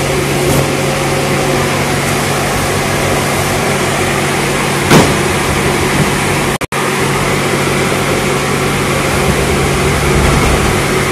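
A steady machine drone with a low hum, and one sharp knock about five seconds in.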